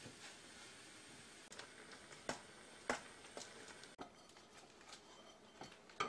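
Instant ramen noodles boiling in an aluminium pot, a soft steady bubbling hiss with a few sharp clicks of metal chopsticks against the pot. About four seconds in the hiss drops away as the pot is tipped into a ceramic bowl, with a sharp clink near the end.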